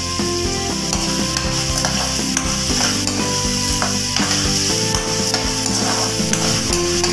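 Chopped garlic, onion and ginger sizzling in hot oil in a wok while a metal spatula stirs them and scrapes across the pan now and then.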